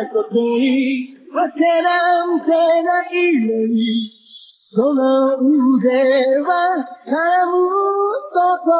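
A woman's voice singing a song, with a short pause about four seconds in.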